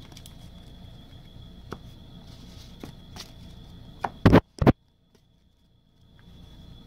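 Handling noise from sorting trading cards and sleeves on a table: faint scattered clicks and rustles, then two sharp knocks about four seconds in, after which the sound cuts out for over a second.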